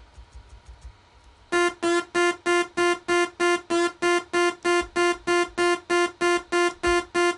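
A bright synthesizer note played back from the sequencer, one pitch repeated in an even pulse about three times a second, starting about a second and a half in. Before it, a few faint mouse clicks.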